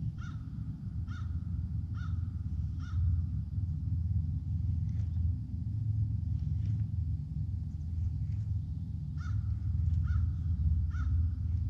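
A crow cawing, four caws a little under a second apart near the start and three more near the end, over a steady low rumble.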